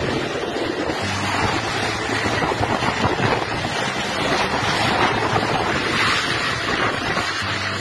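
Tornado-force wind blowing hard across a phone's microphone: heavy, steady wind noise.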